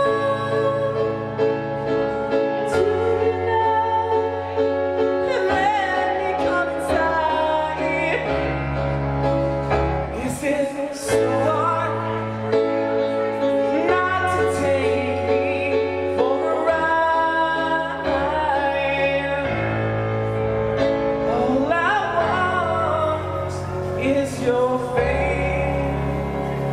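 Live band music: a man sings over sustained chords from an Alesis stage keyboard, with low bass notes changing every one to two seconds.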